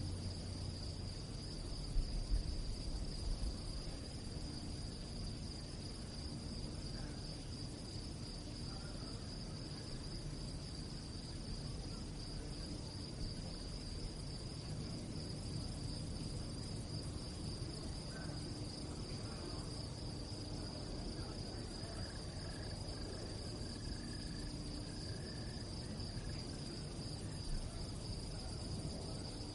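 Crickets chirping at night in a steady, high, even trill, over a low background rumble. A few low bumps come about two seconds in.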